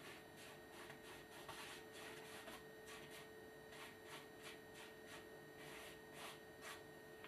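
Faint scratchy strokes of a bristle paintbrush working paint on a stretched canvas, a few short scrapes a second, over a faint steady high-pitched hum.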